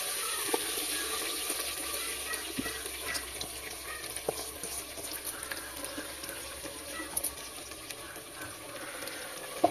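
Marinated chicken pieces sizzling in hot oil in a clay cooking pot (mati handi), with scattered small pops and crackles; the sizzle grows gradually quieter. One sharp tap near the end.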